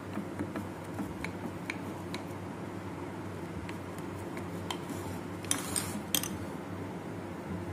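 A knife scoring cashew fudge in a glass baking dish, its blade tip ticking lightly against the glass every so often, with a short cluster of louder clinks and scrapes about five and a half to six seconds in. A steady low hum runs underneath.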